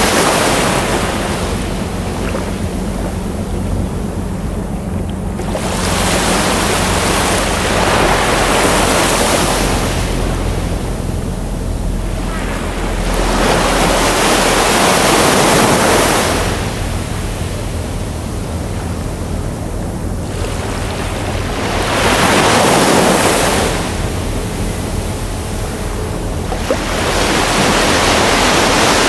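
Ocean surf breaking and washing in, swelling and ebbing in about five slow surges, one every six to eight seconds, over a steady low rumble.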